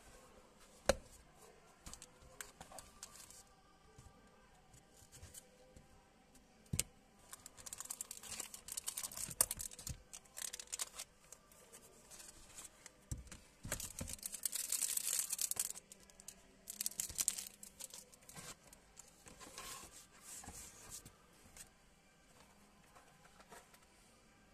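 Unboxing handling noise. Two sharp clicks early on, from the sunglasses case's press-stud snap and its handling. Then several bursts of clear plastic wrapping crinkling and rustling as it is pulled open and handled.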